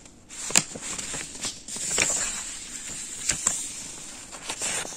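Paper sheets of a stapled exam booklet being handled: soft rustling with a few light clicks and taps.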